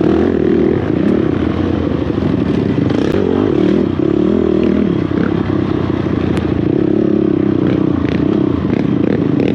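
Honda TRX450R quad's single-cylinder four-stroke engine running hard under racing throttle, its pitch rising and falling as the rider works the throttle, with clatter and rattles from the chassis over the rough trail.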